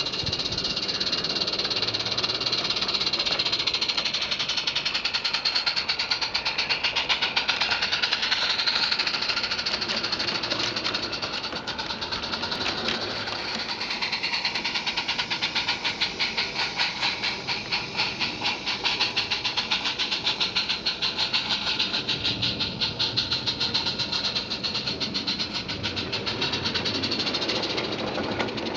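Small live-steam garden-scale locomotive running: steam hissing and a quick chuffing exhaust. In the second half a fast, even clatter comes in as its rake of bogie wagons rolls past over the track.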